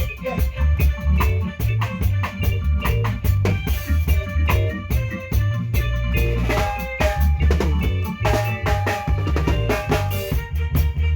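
Live band playing an instrumental groove during a sound check: a drum kit with bass drum and snare or rimshot hits keeps a steady beat over a heavy bass line, with held instrument notes above.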